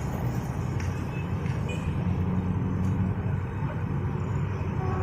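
Heavy vehicle engine rumbling steadily, a deep even drone.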